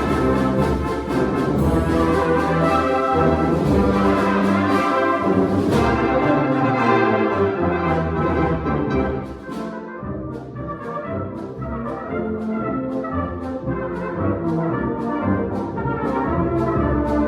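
Orchestral music with prominent brass, softening a little about ten seconds in.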